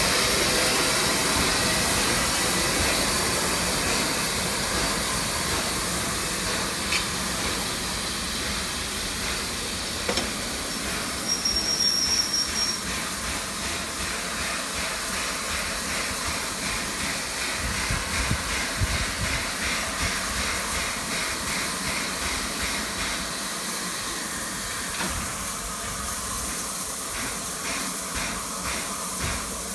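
Steam locomotive Clan Line, a Bulleid Merchant Navy class Pacific, hissing steam steadily, the hiss slowly fading. A brief high-pitched tone sounds about twelve seconds in, and a faint regular pulsing runs through the hiss in the second half.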